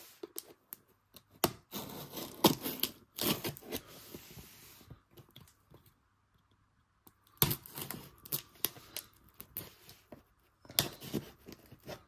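Packing tape on a cardboard box being slit with a knife and torn open, with scraping and rustling as the box is handled and turned over. The noise comes in rasping bursts, a pause in the middle, then more bursts near the end.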